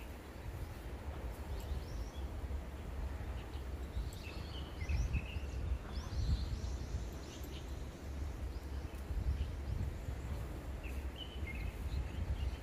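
Gusty wind rumbling on the microphone, with small birds chirping, a cluster of short chirps around the middle and again near the end.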